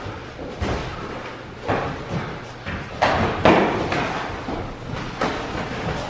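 Sparring gloves landing punches on a partner's gloves and pads: a run of irregular, sharp thuds, the loudest a pair about three seconds in.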